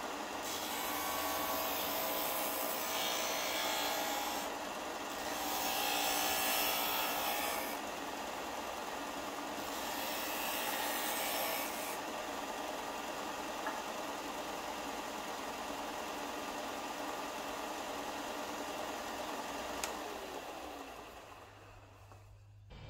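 A WEN 4 x 36 inch belt and 6 inch disc sander running, with a small block of wood pressed against the spinning sanding disc three times in the first twelve seconds, each a scraping rasp over the motor's hum. After that the motor runs alone, then is switched off and winds down with a falling hum near the end.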